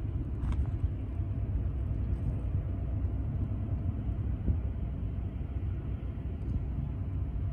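Steady low rumble of a distant engine, with a faint steady hum above it. A brief faint chirp comes about half a second in.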